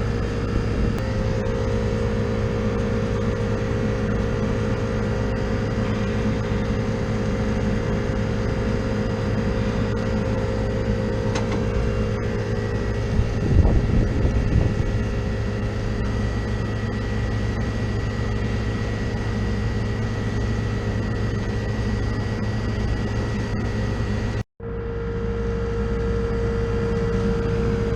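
Air-conditioning condensing unit running steadily while being charged with refrigerant: compressor and condenser fan hum with a constant low drone and a steady whine. It gets briefly louder about halfway through and cuts out for an instant near the end before the same hum goes on.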